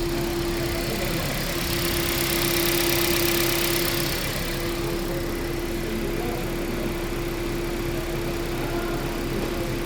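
Toyota Prius petrol engine idling steadily, held running in maintenance mode and warmed up to operating temperature with no misfire. There is a constant hum, and a rushing noise swells between about two and four seconds in.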